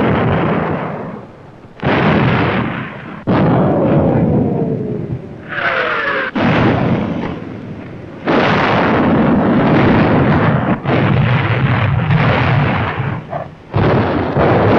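Artillery shells exploding one after another, about five heavy blasts, each rumbling away before the next. Falling whistles of incoming shells come in the couple of seconds before the blast about six seconds in.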